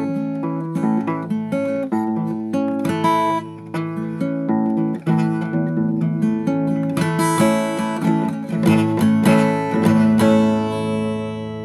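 Acoustic guitar playing a quick run of picked notes and strummed chords, ending on a chord that rings out and fades near the end.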